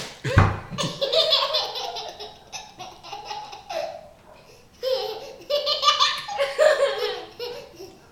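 A little girl blows a short raspberry with her lips at the start, then breaks into two long fits of laughter with a brief pause between them.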